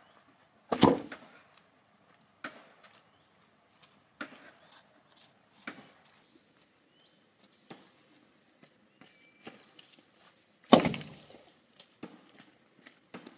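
Long bamboo pole dropped onto the ground with a loud heavy thud about a second in, followed by scattered lighter knocks and footsteps on a dirt path, and a second loud knock near the end.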